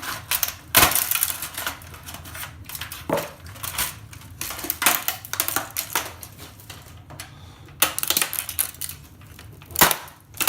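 Irregular metallic clicks, knocks and scraping, some in quick clusters, as a circuit board is forced out of a Samsung set-top box's metal case with its screws still in place.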